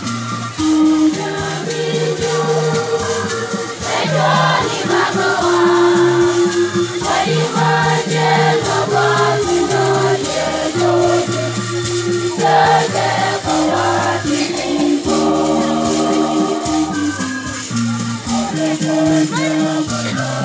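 Women's church choir singing in parts, with long held notes, over the steady rhythmic shaking of hand rattles.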